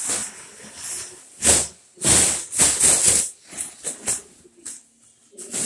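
Gold foil number balloon crinkling and rustling as it is punched and swung about: one sharp burst about a second and a half in, then a close run of loud bursts lasting over a second, and fainter ones after.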